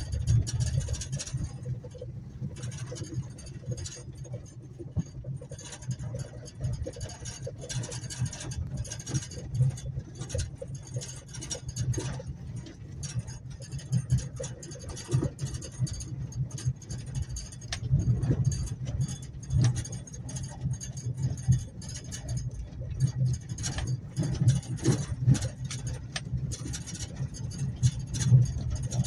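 A car driving over a gravel road, heard from inside the cabin. A steady low engine and tyre rumble runs under frequent irregular clicks and rattles from stones and loose fittings.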